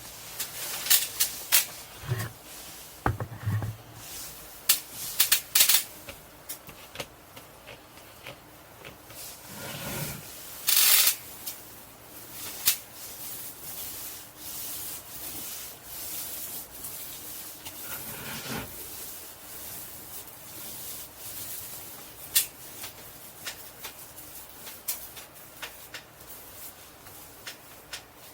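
Custom Coat bed liner being spread onto a truck camper's shell in irregular scratchy rubbing strokes, with a couple of low knocks a few seconds in and one louder scrape about eleven seconds in.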